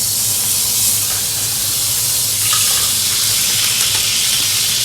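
Steady loud hissing of restaurant-kitchen cooking, with a low hum under it; it cuts off suddenly near the end.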